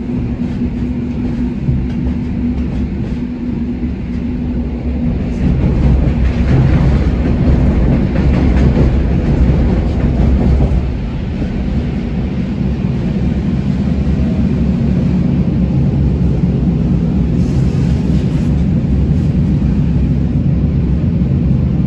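Suburban train running, a steady low rumble with a few steady low tones that grows louder for several seconds about a quarter of the way in, then settles back to an even run.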